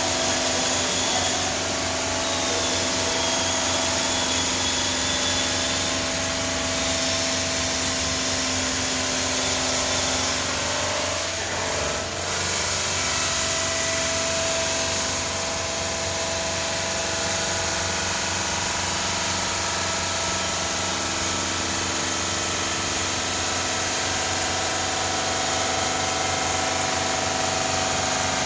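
Denver five-axis CNC bridge saw cutting 20 mm black granite: a steady machine whine with several held tones over a dense hiss, briefly dropping in level near the middle.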